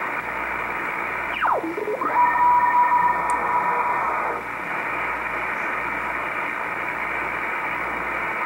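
Shortwave receiver in upper sideband being tuned across the 3 MHz band: a steady band-noise hiss. About a second and a half in, a whistle drops steeply in pitch as the dial sweeps past a signal. It is followed by a steady tone for about two seconds.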